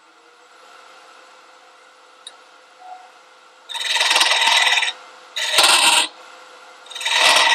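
A cutting tool biting into spinning wood on a lathe, in three loud bursts of about a second each, over the faint steady hum of the running lathe.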